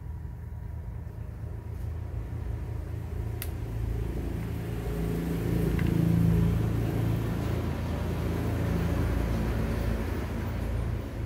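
Low rumble of a motor vehicle's engine running nearby, swelling to its loudest about six seconds in and then easing off a little, with a faint click a few seconds in.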